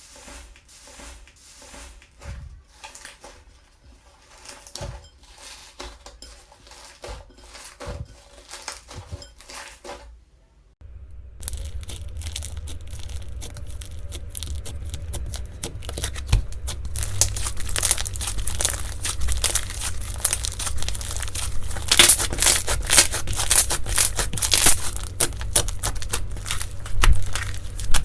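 Slime being squeezed and kneaded by hand, with soft scattered pops and clicks at first. After a brief gap about ten seconds in, a louder, dense crackling and crunching takes over and grows busier from about 17 seconds on.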